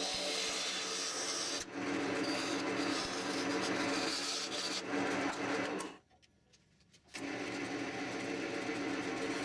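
Wood lathe running with a steady motor hum while a tool scrapes and cuts the spinning wooden handle blank. The sound cuts out abruptly for about a second around six seconds in, then resumes unchanged.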